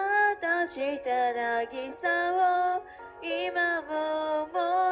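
A woman singing a karaoke duet's female part over the backing track, in held, gliding phrases with a short break about three seconds in.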